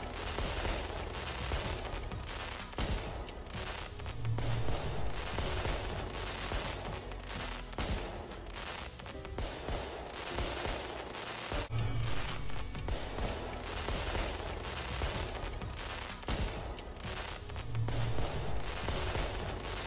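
Fireworks barrage: a continuous rapid volley of bangs and crackle from many shells bursting at once.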